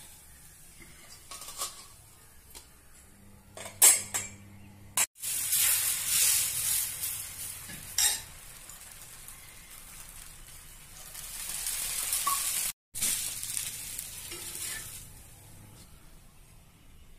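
Tulasi dosa sizzling in ghee on a hot dosa griddle, the hiss swelling and fading, with a few sharp metal clinks, the loudest about four seconds in. The dosa is cooked through.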